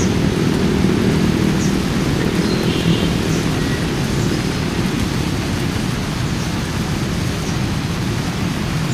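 Steady low rumbling noise, with the flutter typical of wind buffeting the camera's microphone.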